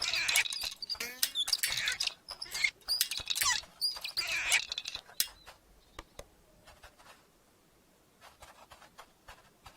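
High-pitched squeaky chirping and chattering for about five seconds, with quick sliding pitches, then only a few faint clicks.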